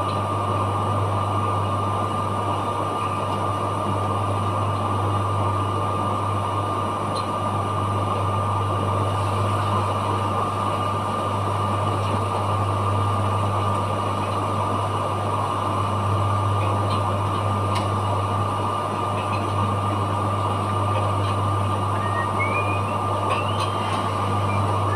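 Steady machinery hum in a dry-cleaning plant: a constant low drone with a thin high whine above it, with a few light clicks near the end.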